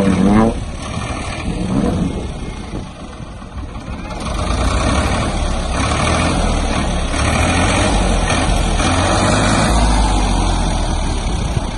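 Farm tractor's diesel engine working under load while towing a stuck vehicle out of shallow water on a strap. It gets louder about four seconds in and holds there.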